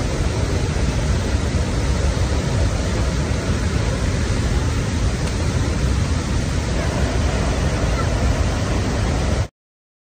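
A large waterfall in heavy flow, pouring with a steady, dense rush of water that cuts off suddenly near the end.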